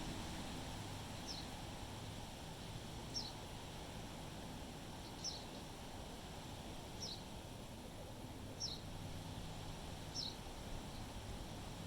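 A bird repeating a short, high, falling chirp six times, about every two seconds, over a steady rush of wind.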